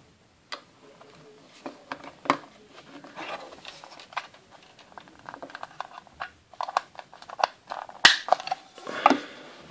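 Hard plastic toy parts of a Playmobil jet ski being handled and fitted together: light scattered clicks and rubbing, with one sharp click about eight seconds in as the handlebar is pushed into place.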